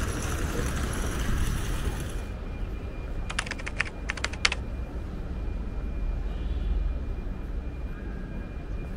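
Outdoor city ambience: a steady low rumble, broken by two short runs of rapid sharp clicks about three and a half and four and a half seconds in.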